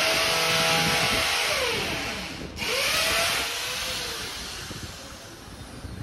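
Motor vehicles passing close by on a street, an engine and tyre noise swelling and sweeping past. The traffic noise fades over the last couple of seconds.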